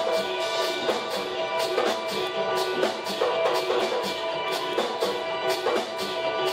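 Live band music: conga drums and other hand percussion beat a steady, busy rhythm under electric guitar and held pitched notes.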